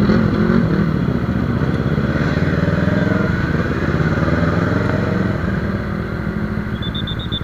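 Motorcycle engine running as the bike rides through traffic with other motorcycles around it. The engine note eases off a little in the last couple of seconds, and a short run of high-pitched beeps sounds near the end.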